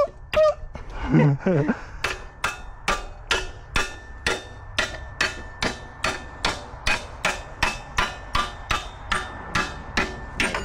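Steady hammer blows on a steel engine-mount bolt of a Honda CB750, about two or three strikes a second, driving the bolt out through the frame.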